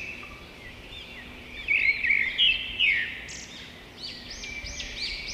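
Birds chirping: quick, high chirps and warbling notes, loudest around the middle, with a fast run of repeated chirps near the end.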